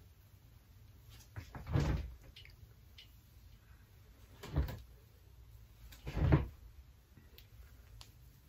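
Hands gathering and smoothing hair up into a ponytail, making three short rustling brushes: about two seconds in, at four and a half seconds, and just after six seconds.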